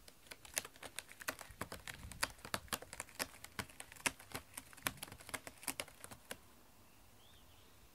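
Cat clawing a corrugated cardboard scratcher: a quick, uneven run of scratchy clicks that goes on for about six seconds, then stops.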